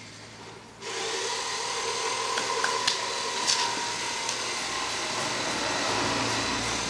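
A steady whirring, hiss-laden machine noise starts about a second in and runs on evenly. A few small clicks of grit being scraped and pushed aside by hand sound over it.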